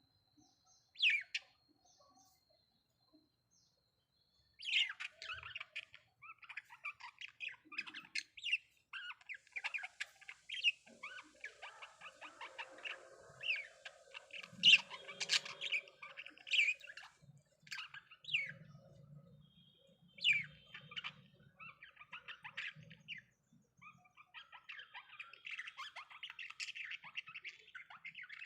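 Budgerigars chirping and chattering: one sharp call about a second in, then from about four seconds in a near-continuous stream of short high chirps with louder sharp calls among them.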